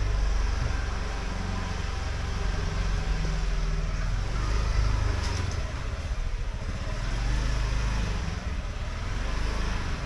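Street traffic noise: a steady low rumble of motorbike engines passing close by.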